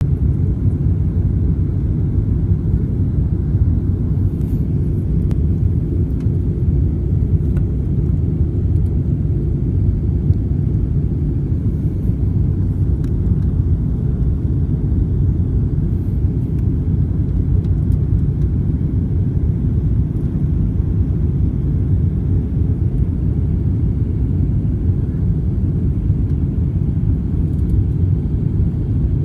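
Steady, deep rumble inside an airliner cabin on descent: jet engine and airflow noise heard from a window seat.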